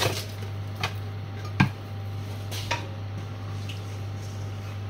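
A few light knocks and clicks of kitchen things being handled, the loudest about a second and a half in, over a steady low hum.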